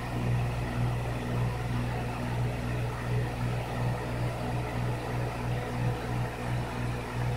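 Aquarium pump running: a steady low electrical hum with a slight regular wavering, over a soft even hiss.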